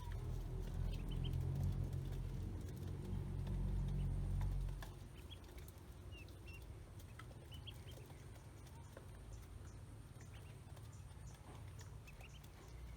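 Ducklings peeping now and then with short, high chirps, over a low rumble that drops away about five seconds in.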